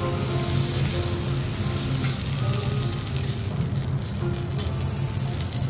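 A thin slice of A5 wagyu misuji (shoulder clod) sizzling steadily on a hot steel teppanyaki griddle while steel spatulas turn and lift it off the plate.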